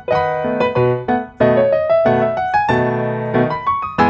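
Background piano music: a melody of struck notes and chords, each note starting sharply and fading.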